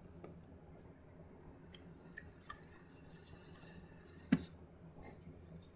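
Light handling noises at a workbench: small clicks and scrapes, with one sharper click about four seconds in, over a low steady hum.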